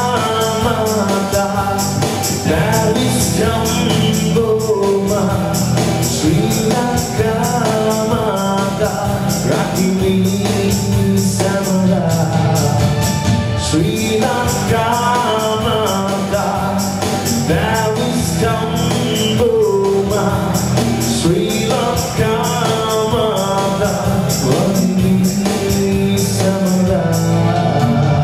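A live band playing: a male vocalist singing over keyboard and percussion, with a steady beat.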